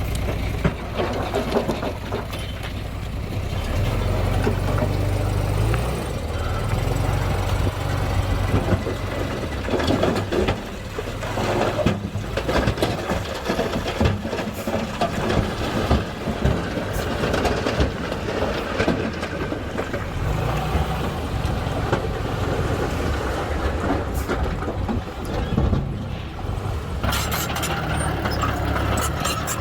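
A 5-ton dump truck's engine running steadily as the bed tips and the load of stone slides out with a rough, broken clatter.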